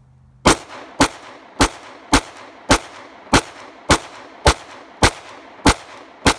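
Glock 19 Gen 4 9mm pistol fired in a steady string: eleven shots about half a second apart, starting about half a second in, each followed by a short echo.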